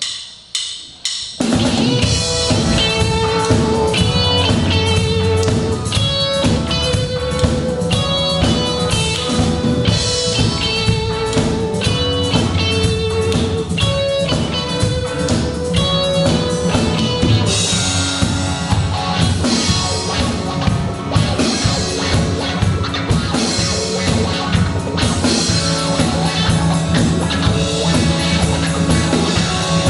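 A band playing with a drum kit, bass and a repeating melodic riff. It comes in at full volume about a second and a half in, after a few sharp clicks.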